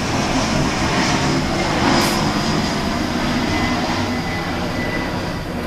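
Steady, even rumble of distant engine noise.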